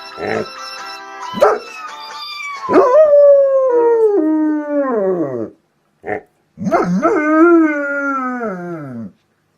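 Dog howling along to a phone ringtone: two long howls that slide down in pitch, with a short call between them. The ringtone's steady tones sound during the first couple of seconds.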